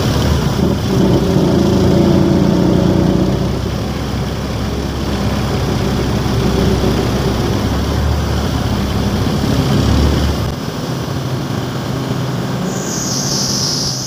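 Truck engine running while driving, heard from inside the cab along with road noise. The deep engine sound drops away about ten and a half seconds in, and a short hiss comes near the end.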